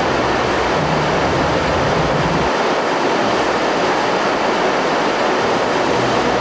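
Waterfall and rushing stream water, a loud steady roar of falling and churning water.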